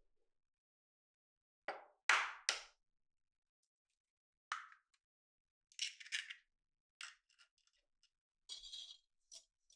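An egg cracked against the rim of a glass mixing bowl: three sharp taps close together about two seconds in, the loudest sounds here. Smaller clicks and short crackles follow as the shell is broken open and the egg drops into the flour.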